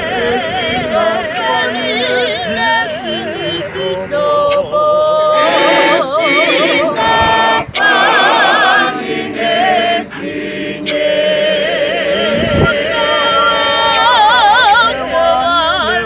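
Mixed choir of men and women singing an isiZulu gospel praise song a cappella in close harmony, with a wavering vibrato on the held notes.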